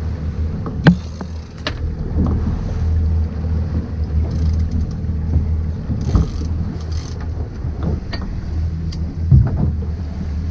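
Boat engine running with a steady low hum, broken by scattered knocks, two of them sharp and loud: one about a second in and one near the end.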